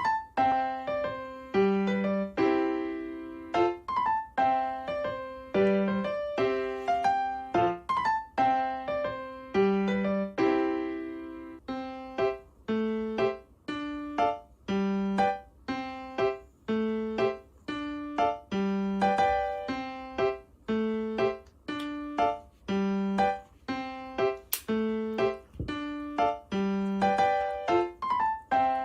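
Background music: a light, evenly paced piano tune of struck notes, each fading after it is played.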